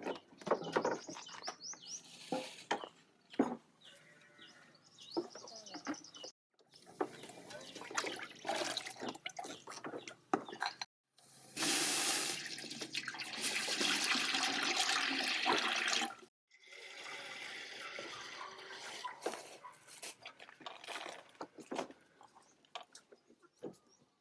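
Water pouring and splashing in several short cut-together stretches, loudest and steadiest about halfway through, with scattered knocks and clatter of handling.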